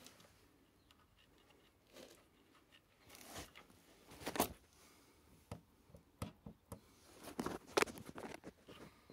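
Irregular rustling and scraping with scattered sharp clicks, the handling noise of the camera being moved about; the loudest scrapes come about four and a half and eight seconds in.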